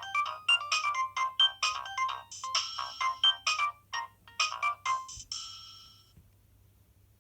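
Nokia 6060 mobile phone playing a ringtone: a quick, bright melody of short notes that ends about five seconds in with a final held chord fading away, then quiet.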